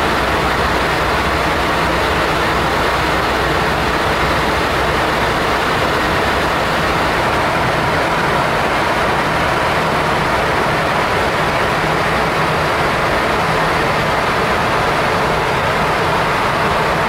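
Steady rushing noise of a Boeing 737 flight deck: airflow and ventilation hiss over a low hum, unbroken and even.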